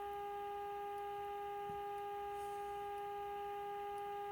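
A 1951 RCA Victor Nipper II radio's speaker sounding the steady modulation tone of a signal generator's 455 kHz test signal, a constant, slightly buzzy tone with overtones. It is heard during IF alignment, while the intermediate-frequency cans are tuned to peak the output.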